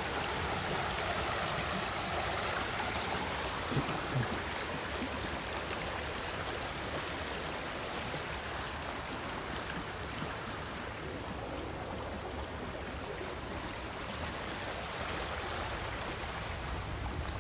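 Steady rush of a high, swollen river, water running past snags and stumps along the bank. Two brief soft thumps about four seconds in.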